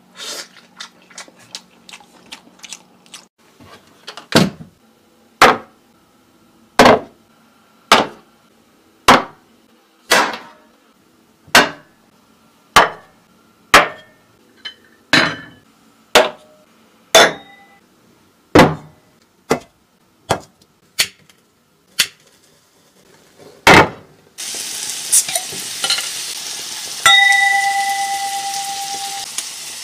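Dishes and bowls of food set down one after another on a wooden table, a sharp knock about every second. Beef and shrimp then start sizzling on a grill pan, and a glass rings briefly near the end.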